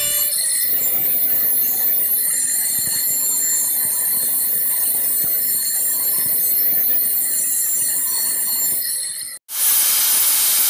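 Angle grinder's abrasive disc grinding a forged steel spade blade, a steady high whine over a hissing metal grind. The sound cuts out for an instant about nine and a half seconds in, then the grinding resumes slightly louder and harsher.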